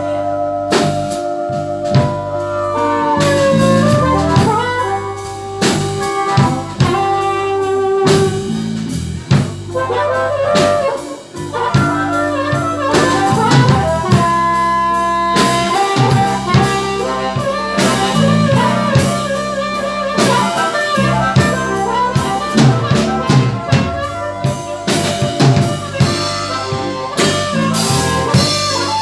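Blues band playing live: an instrumental break with drum kit and bass under a lead melody of held and bending notes.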